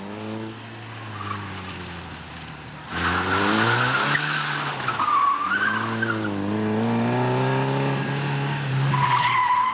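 A small hatchback's engine revving up and down as the car is driven hard through tight turns, with tyres squealing from about three seconds in. It gets louder at that point, and a steadier tyre squeal comes in near the end.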